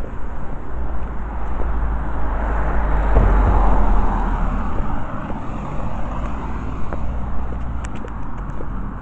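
A car driving past on the road, its noise swelling to a peak about halfway through and then fading, over a steady low rumble.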